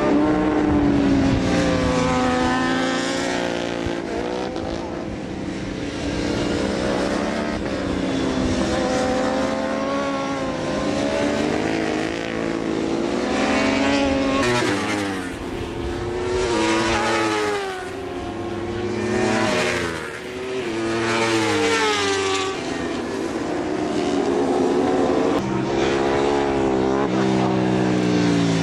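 Racing motorcycle engines at race pace. The revs climb through the gears and then drop sharply under braking, over and over.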